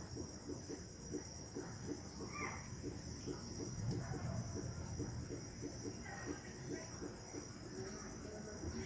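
Night chorus of crickets: a steady, high, shrill trill, with a lower rhythmic pulsing about four times a second underneath.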